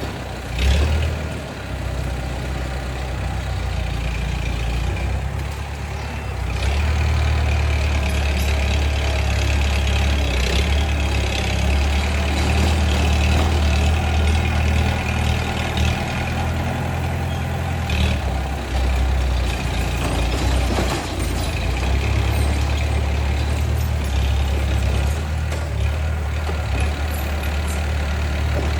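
Bulldozer's diesel engine running steadily with a deep rumble, growing louder about six seconds in, with a few short knocks.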